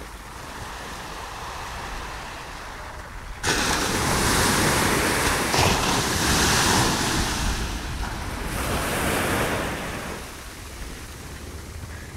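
Ocean surf breaking on a sandy beach: a steady wash that surges suddenly into a loud rushing crash about three and a half seconds in, then eases back near the end.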